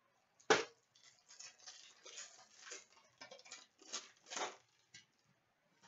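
A foil trading-card pack being handled and torn open: one sharp snap about half a second in, then a string of short crinkling rustles.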